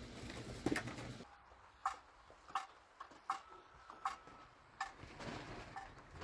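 A bird calling in a steady series of short, sharp notes, about one every three-quarters of a second. The first second carries a haze of rain noise that then drops away.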